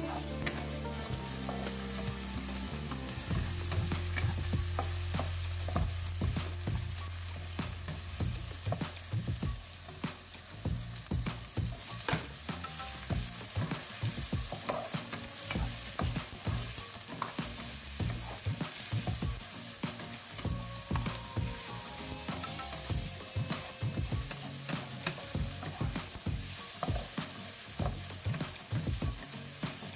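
Chopped vegetables sizzling in oil in a nonstick wok while a wooden spatula stirs and scrapes them, with many light knocks of the spatula against the pan. A low hum sits under the first ten seconds or so.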